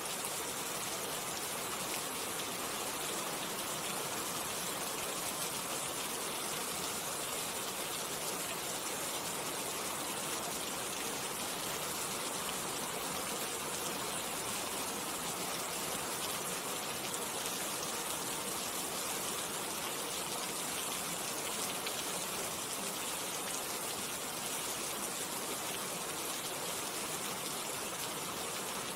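Steady rain: an even, unbroken hiss of countless drops, strongest in the high register, with no single drop standing out.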